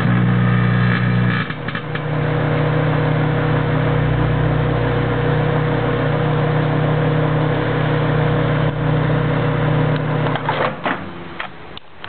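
Microwave oven running with a steady hum. The hum stops about ten and a half seconds in, followed by a few sharp clicks as the door is opened.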